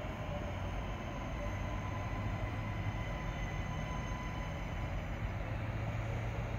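3000 class diesel multiple unit approaching, its diesel engines running with a steady low drone and a faint thin whine.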